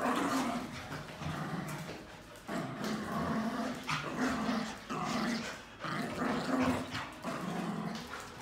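Small dogs growling in play while tugging on a rope toy: a run of short, low growls, one after another.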